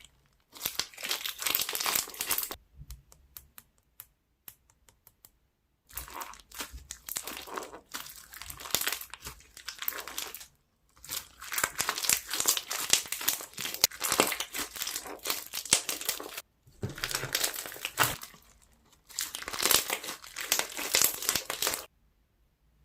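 Pink Lily slime being squished and stretched by hand, giving bouts of crackly clicking and popping. There are short pauses between the bouts, and it stops about a second before the end.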